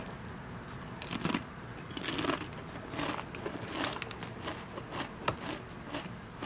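Crisp Lay's potato chips crunching while being chewed, picked up close by a clip-on lavalier mic as a run of irregular sharp crackles. The foil snack bag crinkles as a hand reaches back into it.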